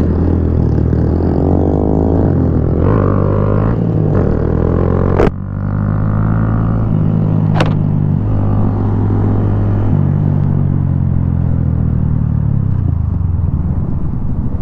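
Honda Grom 125cc single-cylinder four-stroke motorcycle engine running while riding, its note rising and falling with the throttle. Two sharp clicks come midway, a couple of seconds apart.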